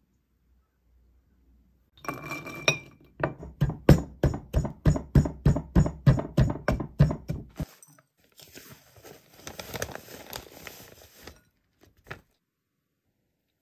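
Mixed nuts tipped into a ceramic grinding bowl, then pounded with a pestle: sharp knocks on the ceramic at about three to four a second for several seconds. Then a foil packet rustles as dry baking mix is poured out of it into a glass bowl, with a single click near the end.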